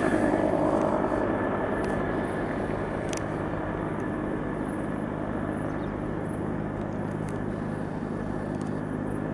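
Firefighting helicopter's rotor and turbine running steadily, easing off over the first couple of seconds and then holding, with a thin steady whine above the rotor noise.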